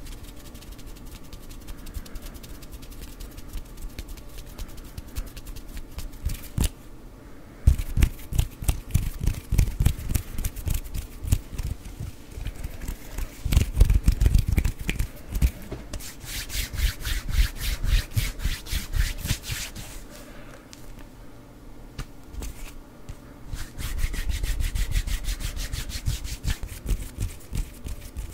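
Close-miked ASMR hand sounds: fingers plucking, flicking and rubbing right at the microphone, making many quick dry clicks and low thuds. A little past the middle comes a hissing stretch of steady rubbing.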